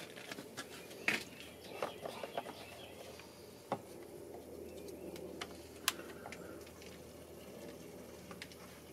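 Gasoline poured from a plastic gas can into a small engine's fuel tank, with a few sharp knocks from handling the can.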